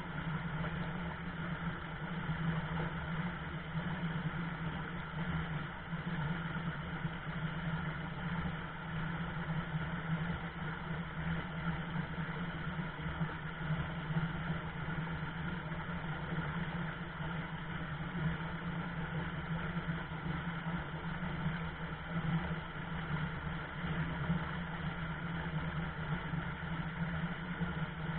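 Shallow river rapids rushing steadily over stones.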